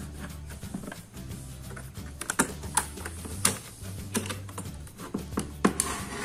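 Sharp plastic clicks and snaps, irregular and a few loud ones in the middle and near the end, as the plastic case clips of a small laptop are pried apart. Background music with steady low tones runs underneath.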